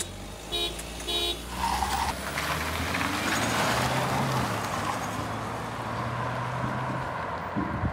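Three short beeps about half a second apart, then a brief higher tone, as a start countdown. Then a Tata Safari's 2.0-litre Kryotec diesel and a Tata Nexon EV accelerate hard from a standing start and rush past, with a steady low engine hum under tyre and wind noise.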